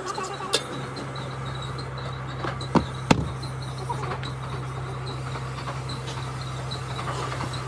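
A steady low machine hum, with a few sharp knocks as the steel moulding flask of a sand-cast mould is handled; the loudest two come close together about three seconds in.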